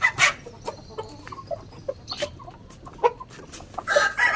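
Chickens clucking in short, scattered calls. Near the end a longer, steady-pitched call starts up.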